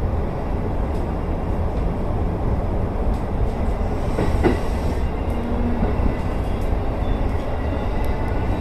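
Electric commuter train running along the line, a steady low rumble of wheels on rails, with a brief sharp knock about halfway through.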